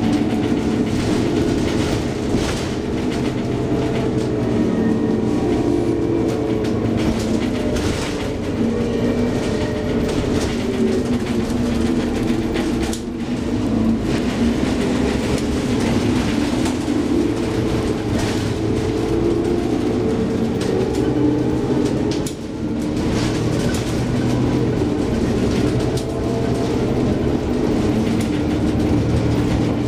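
Scania OmniCity city bus heard from inside the passenger cabin while driving: a steady engine and driveline hum whose pitch drifts up and down with speed, over frequent rattles and clatters of the body and fittings.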